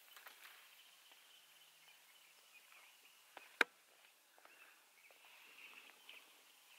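Quiet early-morning mountain ambience with faint distant bird chirping, and one sharp click a little past halfway through.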